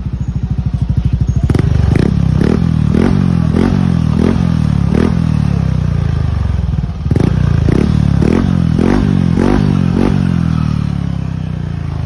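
Yamaha Aerox V2 scooter engine running through an Apido adjustable exhaust with its sound valve set closed. It is blipped a dozen or so times in quick succession, about two revs a second, then settles back toward idle near the end.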